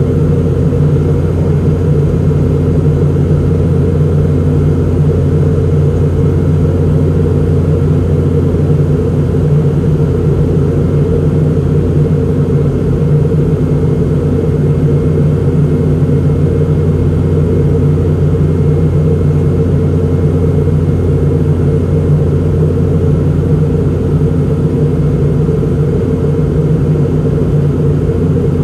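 Cabin drone of a Boeing 717-200 in flight, heard from a passenger seat: its rear-mounted Rolls-Royce BR715 turbofans and the airflow give a loud, steady rumble with a few constant low hums and no change in pitch or level.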